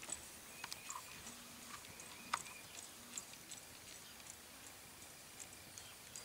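Sorrel tobiano filly walking under saddle on pasture grass: faint, irregular hoof falls and small clicks, one sharper click about two and a half seconds in.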